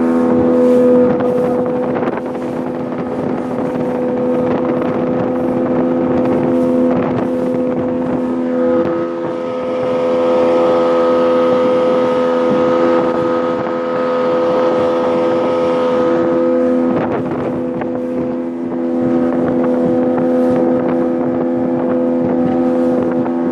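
Yamaha 60 hp two-stroke outboard motor running at a steady speed, with wind buffeting the microphone.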